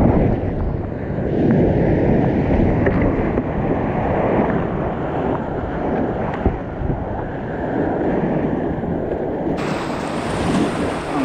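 Whitewater river rushing around a kayak: a loud, dense, dull rush of churning water. There is one sharp knock about six and a half seconds in, and the rush turns brighter and hissier near the end.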